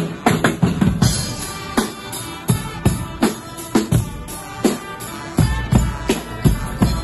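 Guggenmusik band's marching drum section, with bass drums, snare drums and cymbals beating out a steady rhythm. The bass drum strokes get deeper and heavier about five and a half seconds in.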